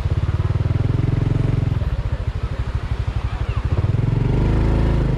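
Honda Dash 125 FI's single-cylinder four-stroke engine running at low revs, its firing pulses distinct, then picking up speed about four seconds in, where the beat smooths into a steadier sound.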